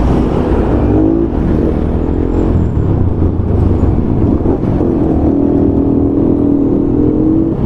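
Motorcycle engine running under way, its pitch rising and easing with the throttle, over a steady low rumble of wind and road noise.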